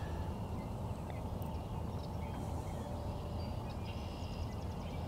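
Faint distant bird calls over a steady low background rumble, with a short rapid trill near the end.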